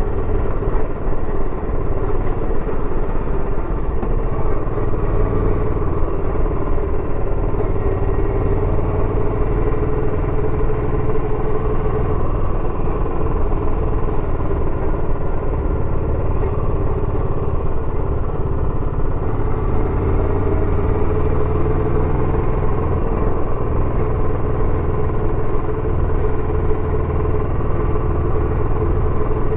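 Royal Enfield Bullet 350X single-cylinder engine running through its stock exhaust while riding at a steady pace, a continuous low exhaust note with no big revs.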